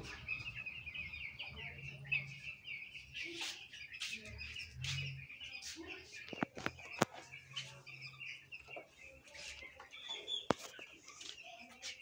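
A flock of young broiler chicks peeping steadily, many short high calls overlapping. A few sharp clicks stand out about six and a half, seven and ten and a half seconds in.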